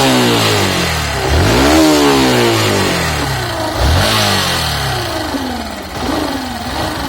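Small motorcycle engine in neutral, revved up and down a few times, then settling toward a lower, steadier speed near the end. It runs with the abnormal hum that the owner puts down to a shorted or burnt-out stator, which also makes the bike misfire.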